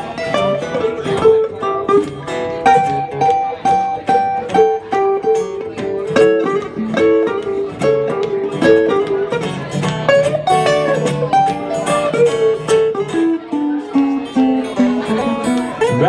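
Acoustic guitars playing an instrumental blues passage, picked melody notes over strummed chords.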